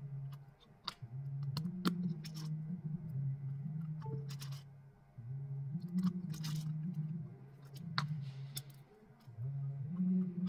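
Sharp small clicks and short scrapes of tweezers and a screwdriver on the metal frame and brackets of an opened iPhone 11. Under them runs background music with a low melody that steps from note to note.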